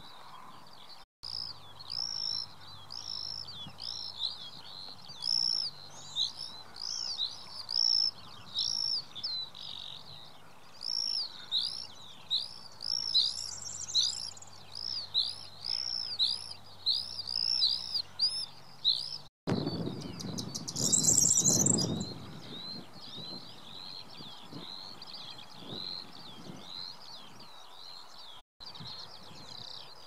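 Songbird singing: a long run of high, arching chirps, about two a second, softer in the last third. A loud rustling rumble, wind or handling on the microphone, lasts a couple of seconds about two-thirds of the way through.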